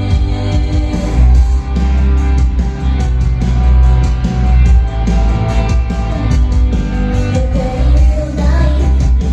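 Live rock band playing loud, with a vocalist singing over distorted guitars, bass and drums, heard through a club PA.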